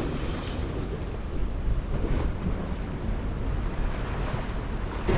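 Strong wind buffeting the microphone, over the steady wash of surf breaking on the shore.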